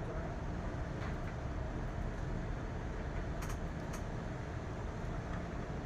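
Steady low background rumble, with a few faint brief clicks.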